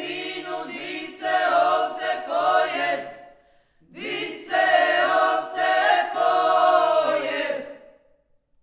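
Small mixed choir of women and one man singing a cappella in harmony: two phrases with a short break between, the second held as the song's closing chord, which stops about a second before the end.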